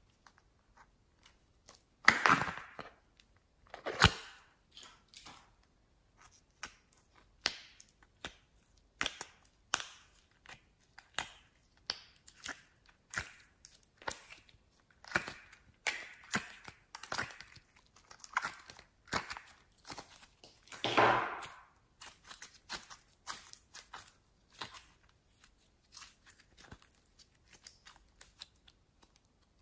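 Soft glossy slime being pulled from its plastic tub and stretched by hand: a run of short sticky pops and crackles, about one or two a second. There are two louder, longer crackles about two and four seconds in and a longer squelch about two-thirds of the way through.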